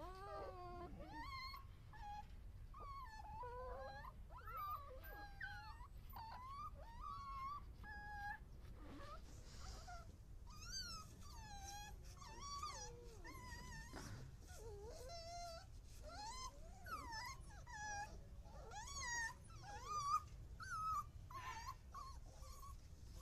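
Indian pariah dog puppies whimpering, many high wavering cries overlapping one another without a break, over a low steady hum.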